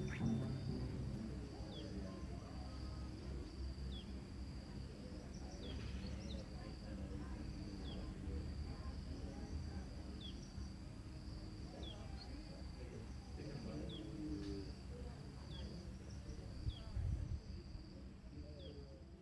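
Outdoor ambience: insects chirring steadily at a high pitch, with a short falling chirp repeated every second or two and faint voices murmuring underneath. It fades out near the end.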